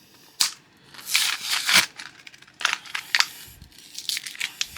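Packaging being worked open by hand, crinkling and tearing in irregular bursts with a few sharp clicks.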